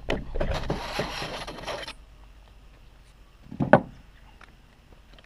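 An old bicycle seatpost being pulled up out of a mountain bike's seat tube: a scraping slide lasting about two seconds. A single sharp knock comes about a second and a half later.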